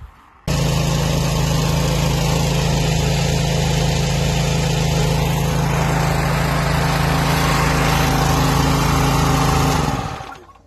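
Bauer PE 100 TB breathing air compressor running on its petrol engine: a steady, loud engine and compressor drone. It comes in abruptly about half a second in and dies away near the end.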